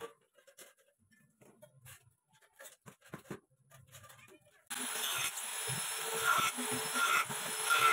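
Scattered soft taps and knocks, then, suddenly about two-thirds of the way in, a handheld electric angle grinder cutting into a grey PVC pipe: loud and continuous.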